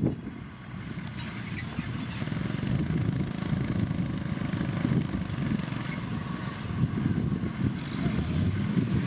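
Heavy road-construction machinery working: a diesel engine's steady, rough rumble.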